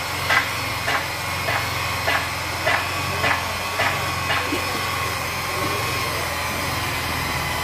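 Electric rotary polisher with a wool pad running steadily while buffing a car's paint, a held whine over a low hum. A regular tick about twice a second comes through for the first four and a half seconds, then stops while the machine keeps running.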